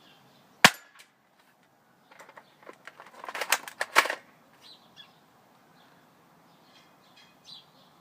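A BB gun fires once with a sharp crack about half a second in. A couple of seconds later comes a cluster of quick clicks and rattles lasting about two seconds.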